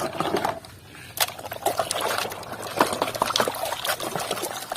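Water splashing and trickling as a toy vehicle is washed by hand, with many small knocks and clicks of the toy being handled in the water.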